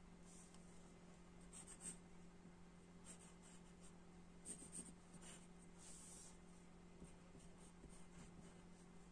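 Faint scratching of a graphite pencil on paper, in short scattered strokes as lines are sketched, over a steady low hum.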